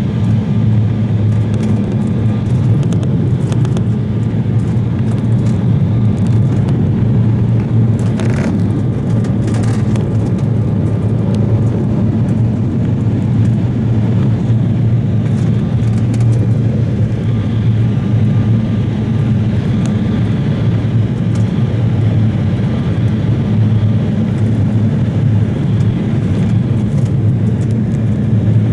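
Cabin noise inside an Embraer 170 regional jet in flight: a steady, deep rush of airflow and engine noise, with a few brief clatters about eight to ten seconds in.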